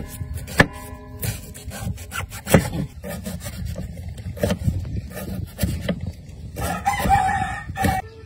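Knife slicing lemongrass stalks on a wooden chopping board: repeated sharp chops against the board. A rooster crows in the background near the start and again near the end.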